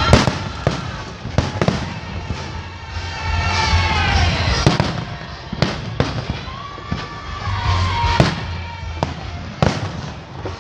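Fireworks display: aerial shells bursting in an irregular series of sharp bangs, about one a second, over music with singing.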